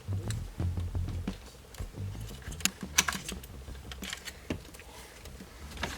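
Irregular light clicks and taps of tools and small parts being handled, with a few dull low knocks.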